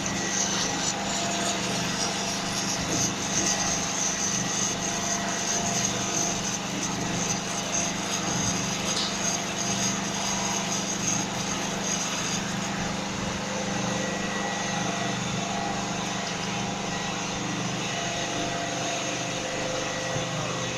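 A PVC pipe-making machine running steadily with a constant mechanical hum and whine. The high hiss drops away about twelve seconds in.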